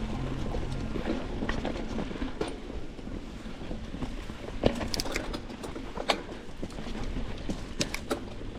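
Mountain bike being ridden on a dirt trail, heard from a bike-mounted action camera: steady wind and tyre noise, with scattered sharp knocks and rattles as the bike goes over bumps.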